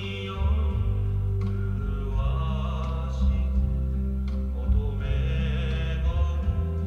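Music with sung, chant-like voices over a deep, steady bass.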